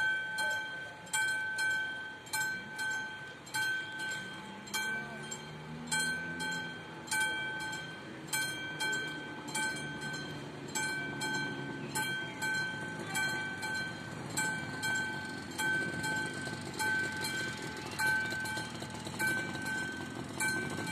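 Level-crossing warning bell ringing steadily at about one ring a second, each ring a clear bell-like tone that dies away. A low rumble builds underneath from about six seconds in.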